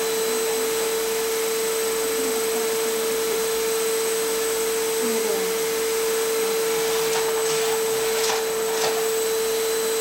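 Vacuum cleaner running steadily with a constant pitched tone as its floor nozzle is pushed over a tiled floor.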